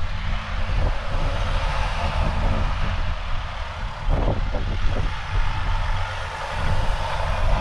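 Mercedes-Benz Sprinter 4x4 van driving slowly through soft beach sand toward the microphone, its engine running under load as it pulls clear after traction tracks were used. Gusty wind rumbles on the microphone throughout.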